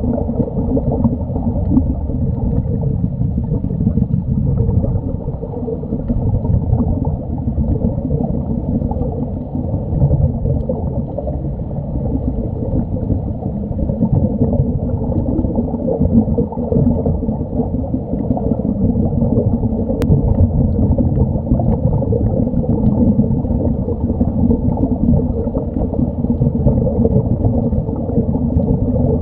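Muffled underwater noise heard through a waterproof camera housing: a steady, dull rushing and rumble of water with nothing high above it.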